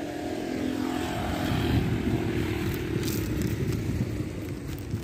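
A passing motor vehicle's engine, a steady rumble that swells about two seconds in and then fades.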